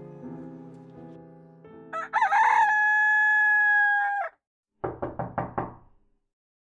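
Soft piano music fading out, then a rooster crowing once, a long held call, followed by five quick knocks.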